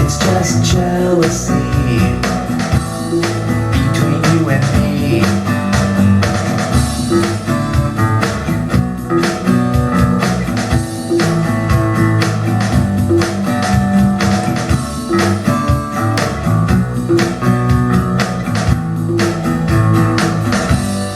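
Instrumental stretch of a blues-rock song: electric guitar over bass and a steady drum beat, without vocals.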